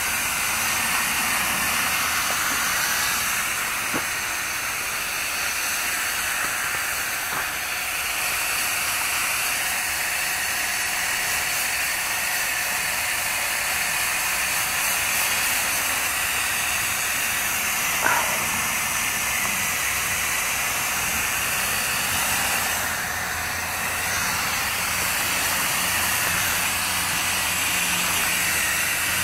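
Spray nozzle on a pressure sprayer lance hissing steadily as it puts out a fine mist of water, with a couple of faint ticks along the way.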